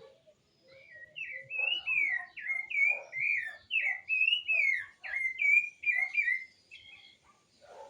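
A songbird singing a fast run of slurred, whistled notes for about five and a half seconds, with softer low chirps before and under it.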